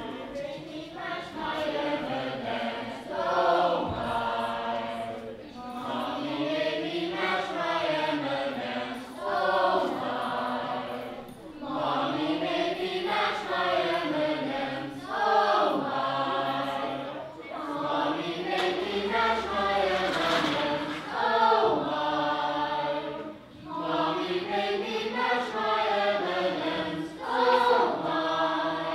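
A stage cast of children and adults singing together as a chorus, the melody rising and falling in phrases of a few seconds with short breaks between them.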